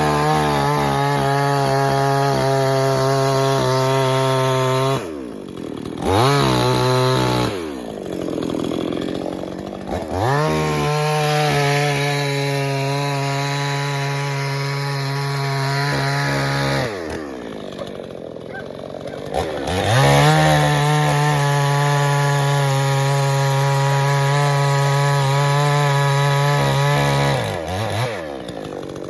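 Pinkway two-stroke gas chainsaw held at full throttle while cutting wood, in three long runs with a short rev between the first two, dropping back toward idle in between.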